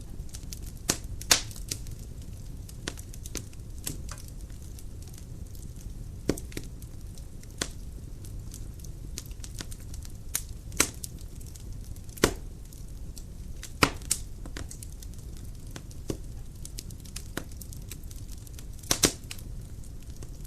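Dry firewood burning in a fireplace: a low steady rumble of flame with sharp, irregular crackles and pops, a few of them loud snaps.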